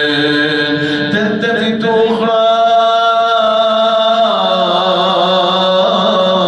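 A man's voice chanting a mournful Arabic elegy in long, held, wavering notes. This is the sung lament on Husayn's martyrdom that follows a Muharram sermon. The pitch shifts about two seconds in and again a little past four seconds.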